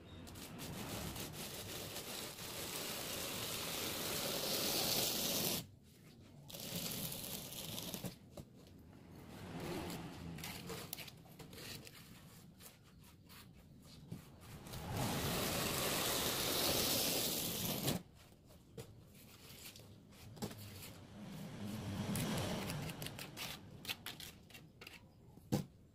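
A hand tool scraped along the surface of freshly made wet sand-cement fascia strips to shape and smooth them, in about five long strokes of a few seconds each with short pauses between. There is a sharp tap near the end.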